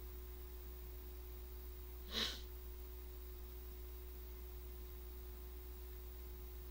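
Quiet room tone with a steady low hum and a faint steady tone, broken about two seconds in by one short breath from a man sitting close to the microphone.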